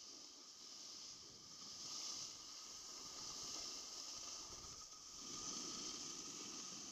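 Snowboard sliding over packed snow, a faint steady hiss that swells twice as the rider turns.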